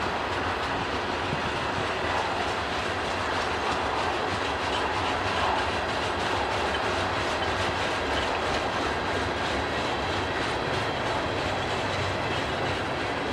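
Freight train cars rolling past, a steady rumble with the wheels clicking over the rail joints.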